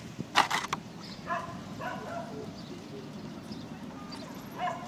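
Plastic clatter of a hard-plastic RC buggy body shell being handled and set onto the chassis: a quick cluster of sharp clicks about half a second in, then only light handling noise.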